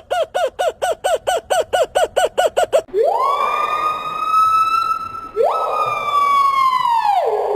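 A bird's rapid run of short, falling chirps, about seven a second. About three seconds in it switches to two siren-like wails, each rising quickly, holding and then sliding down.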